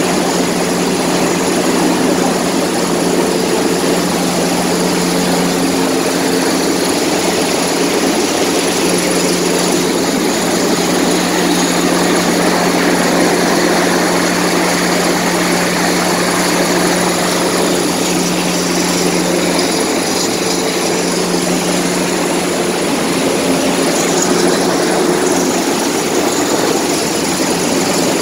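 Search-and-rescue helicopter hovering low overhead: loud, steady rotor and turbine noise with a constant hum.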